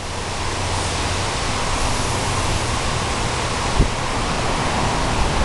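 Steady, even rushing noise with a low hum underneath, and a single short click nearly four seconds in.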